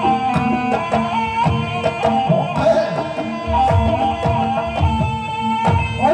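Javanese gamelan music playing steadily: regular drum strikes under sustained ringing tones, with a melody that bends and slides in pitch.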